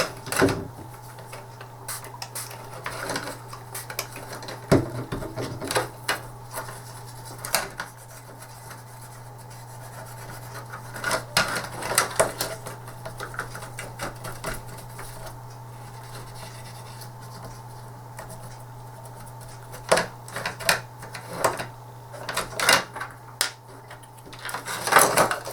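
Small plastic parts of a disassembled joystick being handled and set down on a workbench: scattered light clicks and knocks, bunching up near the end, over a steady low hum.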